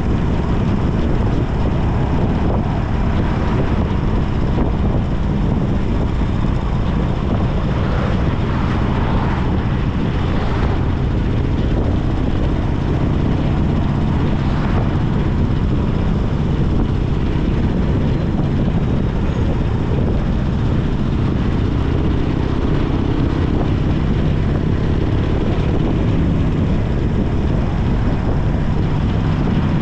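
Harley-Davidson Sportster 1200 Custom's air-cooled V-twin running under way at a fairly steady cruise, its low exhaust note rising and falling a little in pitch.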